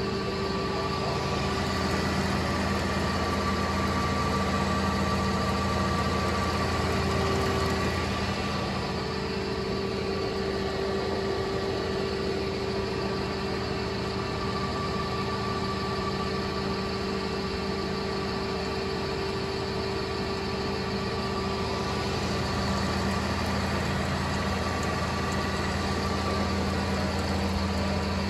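Estarta 312 centerless grinding machine running under power: a steady mechanical hum with several steady tones over it. The low part of the hum eases about eight seconds in and swells again near the end.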